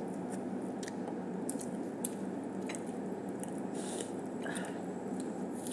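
A person biting and chewing food close to the microphone, small crisp clicks of chewing scattered over a steady background hum.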